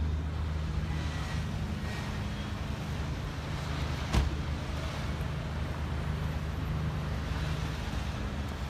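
Street traffic with a steady low engine hum, and a single sharp knock about four seconds in.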